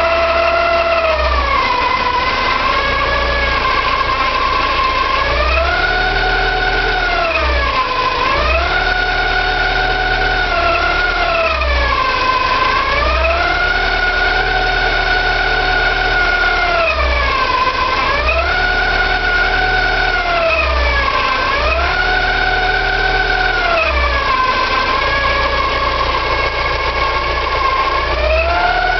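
Porsche 944 2.5-litre eight-valve four-cylinder engine running, with a loud whine from the front of the engine that repeatedly drops and climbs back in pitch every few seconds. The owner suspects the oil pump or a balance shaft.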